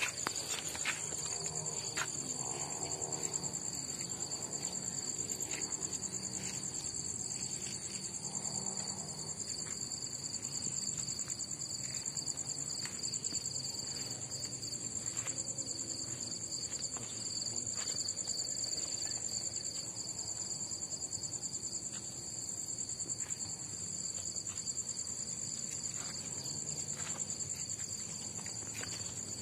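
Steady, high-pitched chorus of crickets and other night insects, unbroken throughout, with two separate high trilling voices.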